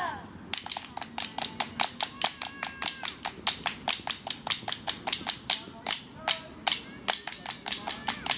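Hands clapping in a fast steady rhythm, about five sharp claps a second, beginning about half a second in.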